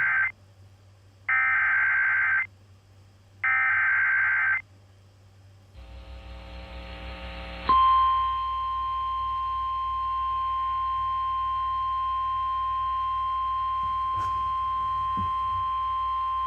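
Emergency Alert System signal on a NOAA Weather Radio broadcast. The digital SAME header bursts: the end of one, then two more of about a second each, with second-long gaps. A rising hiss follows, then a steady 1050 Hz warning alarm tone that holds for about nine seconds, marking the start of a new severe weather warning.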